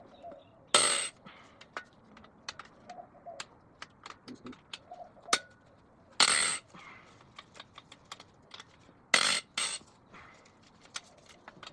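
Small metal clinks of tools and engine parts being handled during a teardown, with four brief loud bursts of a power tool, two of them close together near the end.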